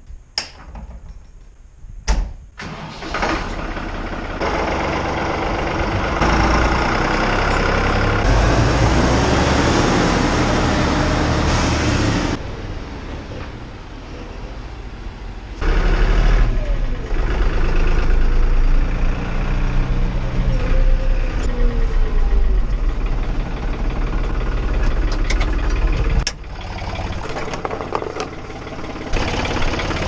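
A clunk about two seconds in, then a New Holland TN70D tractor's diesel engine starts and runs, rising and falling in loudness as the tractor drives off towing a feed mixer.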